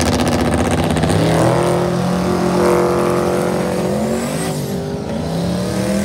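Boosted V8 in a Chevy Silverado drag truck, held at steady revs on the start line, then climbing in pitch as it launches about four and a half seconds in.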